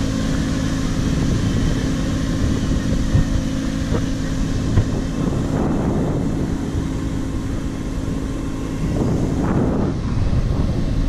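Steady wind rushing over the microphone of a parasailer towed high above the sea, over a steady low drone.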